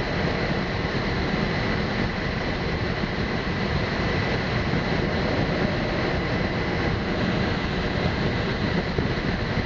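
Steady rush of air around the cockpit of a Slingsby Capstan glider on aerotow, mixed with the drone of the tow plane's engine ahead. A faint, steady high tone runs through it.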